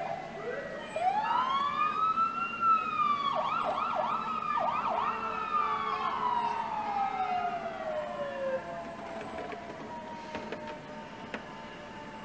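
Emergency vehicle sirens wailing: a loud wail rises about a second in, breaks into a few quick whoops in the middle, then slowly falls away, with fainter sirens going on behind.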